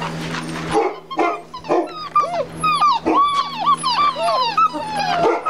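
Seven-week-old English mastiff puppies whining and yipping, a quick run of high, bending cries that starts about a second in. The pups are shut in a small box and want to get out.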